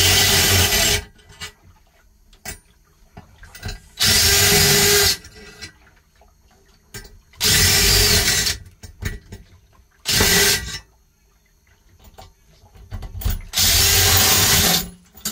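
DeWalt cordless driver spinning nuts down mounting studs with a socket on an extension, in five bursts of about a second each with short pauses between.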